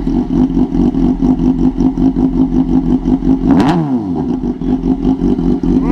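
Kawasaki Ninja 250 motorcycle engine with the muffler removed, idling loud and steady in neutral just after starting, with one quick throttle blip about three and a half seconds in, its pitch rising and falling back.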